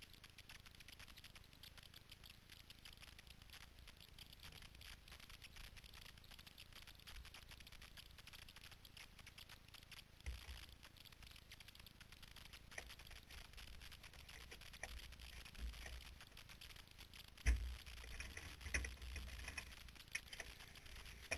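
Very quiet hiss and fine crackling on the onboard camera's microphone in a stationary single-seater race car, with no engine running. A few soft low thumps come in, louder and more frequent near the end.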